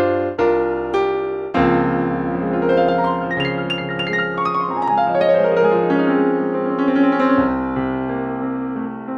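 Piano voice of a Korg Krome keyboard workstation played with both hands: a low chord struck about a second and a half in, then a run of notes climbing and falling back down, ending on a held chord that fades.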